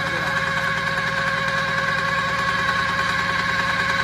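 Small portable core drilling rig running steadily, its electric motor turning the drill rod as it bores into the ground: a steady whine over a fast, even pulsing.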